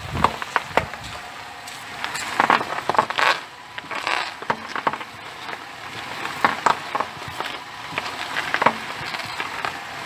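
Front tyre of a 2010 Ford Fusion crunching and crackling over small gravel stones as the wheel is steered at a standstill, in irregular crackles throughout. No rumble comes from the electric power-steering rack, whose worn bearing has been replaced.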